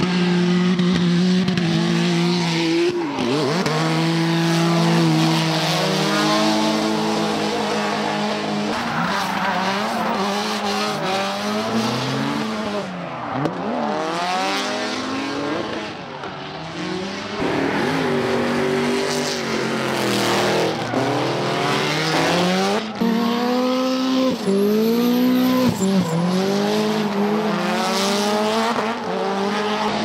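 Hyundai Genesis Coupe drift cars sliding in tandem: engines revving up and down over and over, with tyre squeal and skidding.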